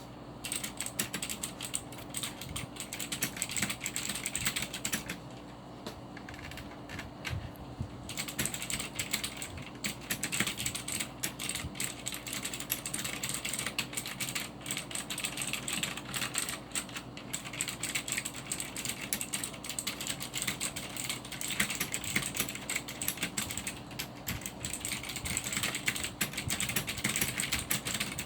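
Typing on a Cherry G80-3800 mechanical keyboard with clicky Cherry MX Blue switches: a quick, continuous stream of keystroke clicks that eases off briefly about five seconds in and then picks up again.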